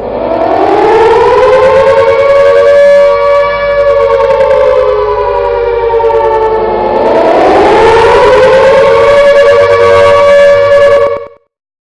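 Air raid siren wailing: its pitch rises at the start and holds, sags about six seconds in and climbs again, then cuts off suddenly near the end.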